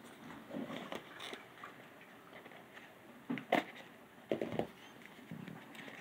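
Handling noise from a small cardboard retail box and a pair of scissors on a wooden table: soft rustling, with a few sharp clicks and knocks about halfway through as the scissors are picked up.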